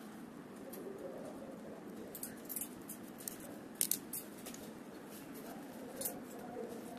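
Light clicks and taps of wooden craft sticks and small pieces of card being handled and set down on a tabletop: a few sharp clicks around two seconds in, a louder pair near four seconds and another near six, over a steady low background hum.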